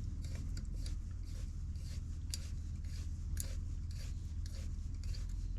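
Helicoil insertion tool winding a stainless steel wire thread insert into a tapped alloy crankcase stud hole: faint, irregular small metal clicks and scrapes as the tool is turned, over a steady low hum.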